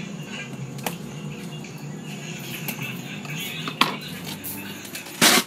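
Hands handling a taped cardboard parcel on a desk: a light click about a second in, a sharper knock later, then a loud, short rustling noise near the end.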